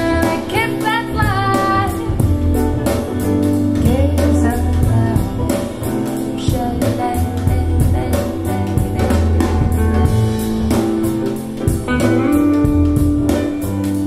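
Music: a song with singing over a band, with a strong bass line and a steady drum beat.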